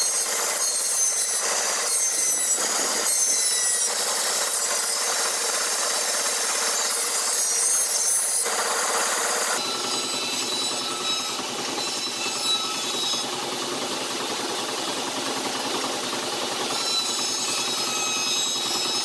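A 150-year-old belt-driven bandsaw, powered by an old stationary engine, ripping spruce 3x2 lengthwise: steady sawing noise with a high whine over it, changing in tone about halfway through.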